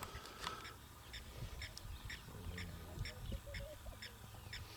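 Faint, short animal calls repeated evenly about three times a second, bird-like, over a low rumble.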